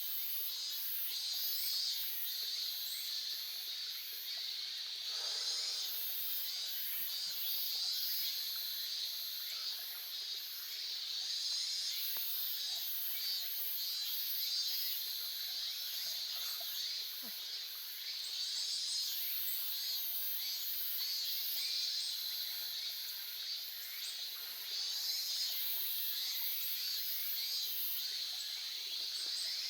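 Gentle stream babbling, with insects chirping high above it in quick pulses, about two a second, in runs that stop and restart.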